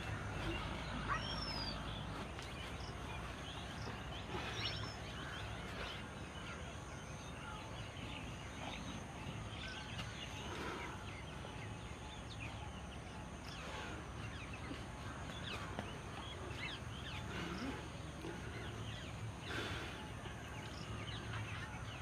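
Outdoor rural ambience: many birds chirping and calling in short scattered notes over a steady low background noise.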